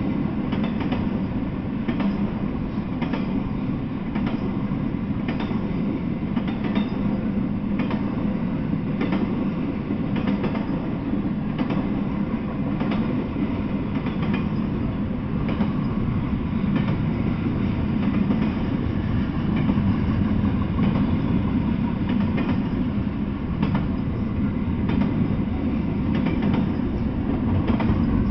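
Double-stack intermodal container freight train rolling past at close range: a steady rumble of steel wheels on the rails, with repeated clicks roughly once a second.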